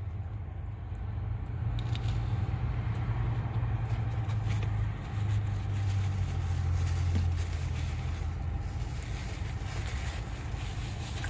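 Steady low hum of an idling car heard from inside the cabin, with a few faint clicks about two seconds in.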